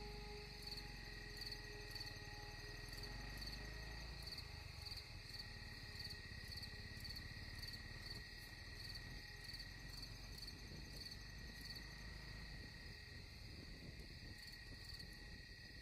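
Insects chirping: a high pulsing chirp repeating evenly, about one and a half times a second, over a steady high trill. A low rumble lies underneath, stronger in the first four seconds.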